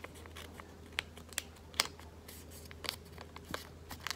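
Origami paper being handled and folded between the fingers: a scatter of short paper crinkles and crisp taps as the folds are creased.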